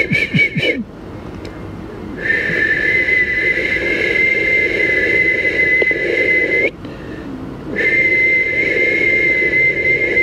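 A man whistling a long steady high note into a desk telephone, held for about four and a half seconds, then after a short breath a second note of about two and a half seconds.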